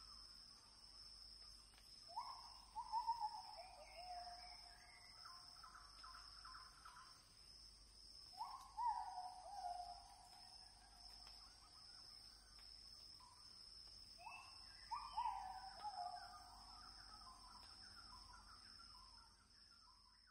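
A bird calling three times, about six seconds apart. Each call is a quick series of notes stepping down in pitch, heard over a steady high-pitched hum.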